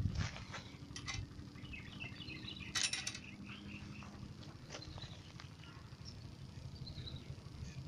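Outdoor ambience of birds chirping, with a few brief clicks and rustles, the loudest cluster about three seconds in, over a steady low rumble.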